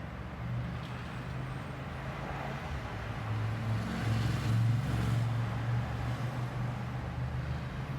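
Low, steady rumble of a running vehicle, growing somewhat louder about four to five seconds in.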